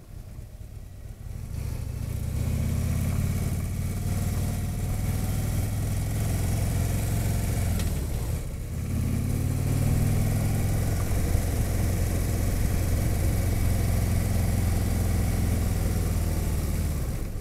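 Harley-Davidson touring motorcycle's V-twin engine heard from the rider's seat, picking up about two seconds in and pulling steadily under throttle, with wind rushing over the microphone. The engine note dips briefly near the middle, then climbs and holds again.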